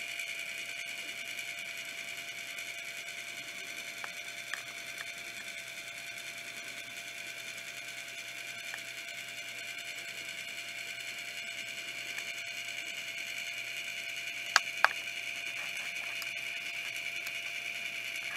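Small motor of a rotating display turntable running with a steady whir and a thin hum. A few faint ticks come early, and two sharp clicks in quick succession come near the end.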